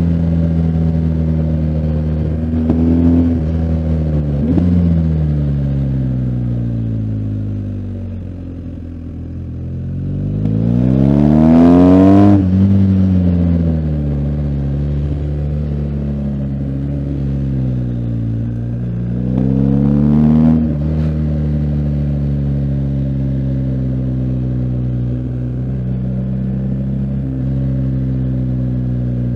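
BMW R1250GS Adventure's boxer-twin engine running under a rider's throttle: its pitch sinks as it slows, climbs hard under acceleration about ten to twelve seconds in and drops away, rises again more briefly about twenty seconds in, then runs steady.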